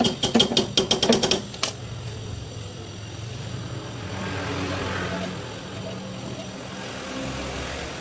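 A quick run of sharp metallic clicks as a hand tool works on a refrigerator compressor's copper tubing, followed about four seconds in by a short soft hiss.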